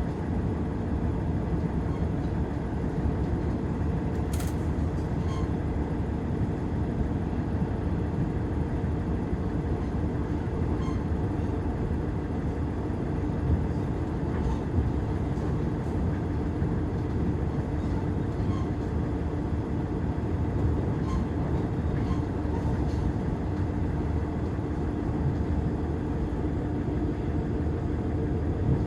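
Diesel railcar running along the line, heard from inside the cabin: a steady rumble of engine and wheels on rail, with a steady hum that strengthens partway through and a few sharp clicks.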